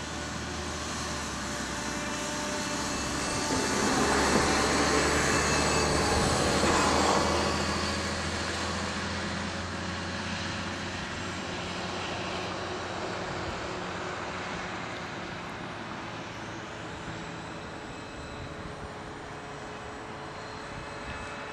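Motor and propeller of a scratch-built radio-controlled model airplane in flight, a steady buzzing drone that swells about four seconds in as the plane passes closer, then fades back as it flies off.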